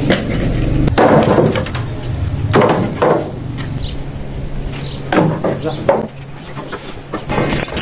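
Dry firewood branches knocking and clattering together as they are loaded into and wheeled in a metal wheelbarrow, in a string of irregular sharp knocks.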